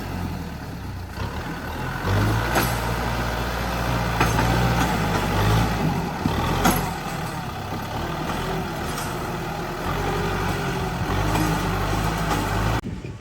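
Heavy diesel construction machine at work: the engine runs with a low drone that shifts in pitch, broken by a few sharp metallic knocks. The sound drops off suddenly near the end.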